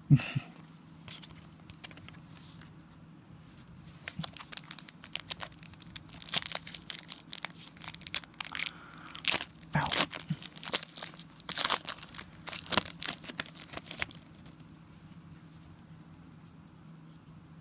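Foil wrapper of a trading card pack being torn open and crinkled by hand, a run of sharp crackles from about four seconds in until about fourteen seconds in.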